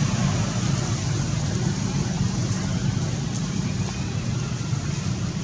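Steady outdoor background noise, an even low rumble with a hiss above it and no distinct events or animal calls.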